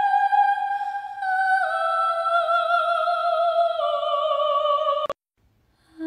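Background music: a slow, high melody of long held, wavering notes stepping downward. It cuts off with a click about five seconds in, and almost a second of silence follows.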